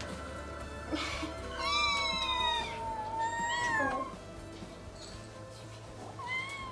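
Kittens meowing: two long, drawn-out meows about two seconds in, then a short one near the end, over soft background music.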